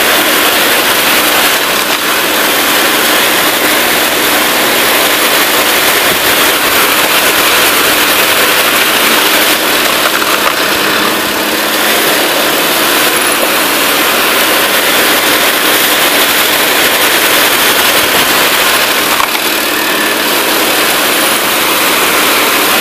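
Engine of a homemade cone-screw wood splitter running steadily at a constant speed while logs are fed onto the spinning cone.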